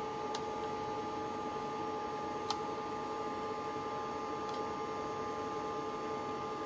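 Steady hum and whine of running video equipment, a videotape deck and CRT monitor, with a few soft clicks as the monitor's front-panel buttons are pressed, the sharpest about two and a half seconds in.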